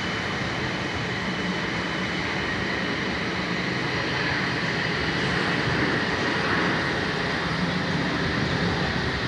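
Learjet's twin jet engines at takeoff power during the takeoff roll: a steady rushing roar with a high whine held on top, swelling slightly about halfway through.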